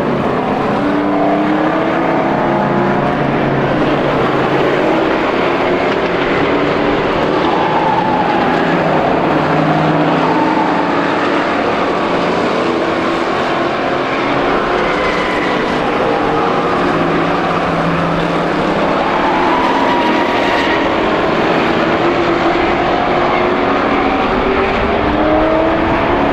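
Several Strictly Stock race cars' engines running together on a short oval, their pitch rising and falling as the cars pass and work through the turns.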